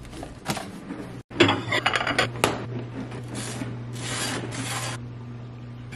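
Table knife scraping peanut butter across a slice of toast: three or four rasping strokes in the second half, over a low steady hum. Before that, a few clicks and knocks of jars being handled on a pantry shelf.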